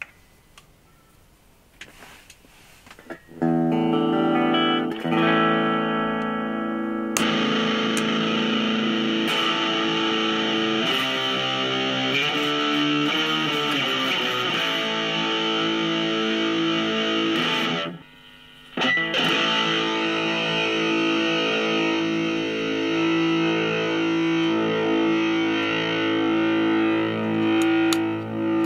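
Electric guitar played through a repaired AMT D2 guitar preamp pedal on a sound check, and the pedal is working with no problem. After a few faint clicks the chords come in, first with a cleaner tone. About seven seconds in they switch suddenly to a brighter distorted tone, with a brief break a little after halfway.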